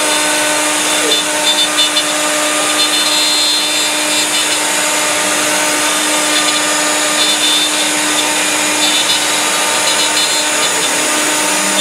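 CNC router spindle running at a steady pitch while a 60-degree V-bit cuts wood, cleaning up around raised letters, the cutting noise rising and falling slightly as the bit moves.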